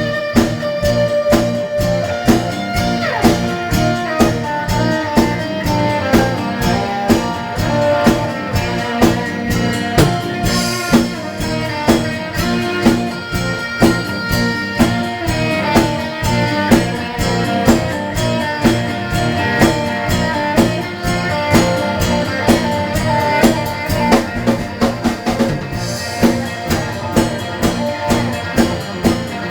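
A live band playing a song, with guitar over a drum kit keeping a steady beat.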